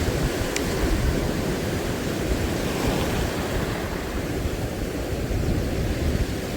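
Sea surf washing steadily onto the beach, with wind buffeting the microphone.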